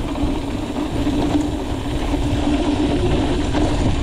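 An engine running steadily, a constant hum over a low rumble.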